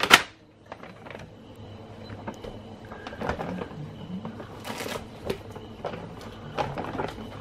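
Small handling sounds at a shop checkout counter as goods and payment are dealt with: a sharp knock at the start, then light clicks and rustling, with a louder rustle about five seconds in.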